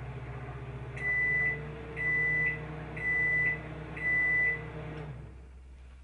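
Microwave oven running with a low hum, then beeping four times, about one beep a second, to signal the end of the cooking cycle; the hum cuts off just after the last beep.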